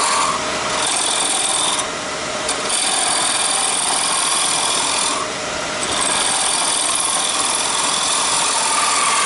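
Wood lathe spinning a pen blank while a hand-held turning tool cuts it: a steady scraping hiss over the lathe's whine, easing briefly twice. The tool is shaving away rough spots left by chip-out on the pen barrel.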